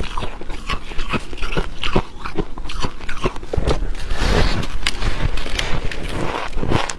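Dry freezer frost being bitten and chewed: a rapid, irregular run of sharp crunches, thickening into denser crunching a little past the middle.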